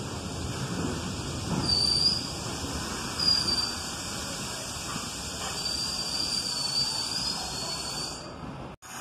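R68 subway train rolling into an elevated station and slowing, its wheels rumbling on the rails. High-pitched brake squeals come in short bursts, then a longer squeal near the end. The sound cuts out for a moment just before the end.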